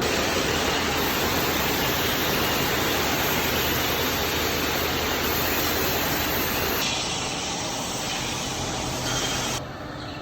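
Loud, steady hiss of factory machinery over a low hum, changing abruptly twice, about seven and nine and a half seconds in.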